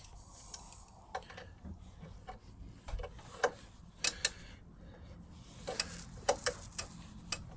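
Irregular light metal clicks and taps of an adjustable wrench being worked on the rear axle nut of an electric bike, with the wheel shifting in its dropouts.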